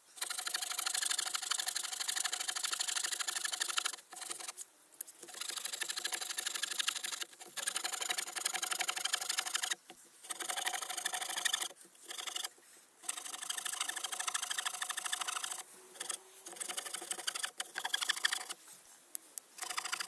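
Victorinox pocket-knife saw blade cutting through a hard larch board with fast back-and-forth strokes: a steady rasping that stops briefly several times.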